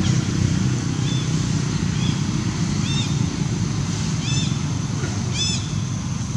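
Steady low rumble with a high, even hiss above it. A bird calls over the top in short arched chirps about once a second, growing louder toward the end.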